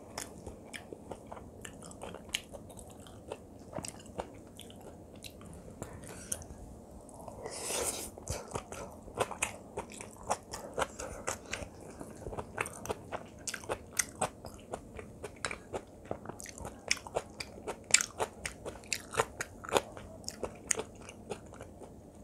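Chewing and biting of kimchi fried rice close to the microphone: a rapid run of wet mouth clicks and smacks, with a longer, noisier sound about eight seconds in.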